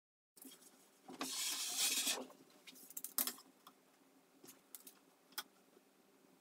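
Measuring tools handled on a wooden worktop: a sliding scrape lasting about a second, then scattered light clicks and taps.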